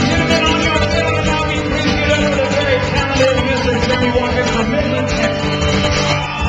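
Live acoustic country band playing: strummed acoustic guitars with a bowed fiddle.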